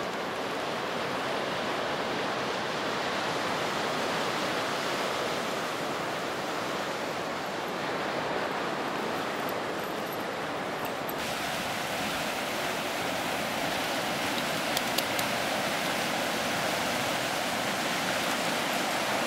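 Steady rushing noise of ocean surf breaking on a sandy beach. The hiss becomes brighter about eleven seconds in, and a couple of brief clicks come a few seconds later.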